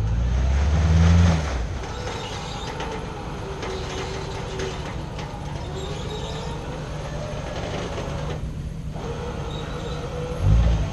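Off-road 4x4 engine running under load, with a wavering whine. It surges loudly in the first second or so and again near the end.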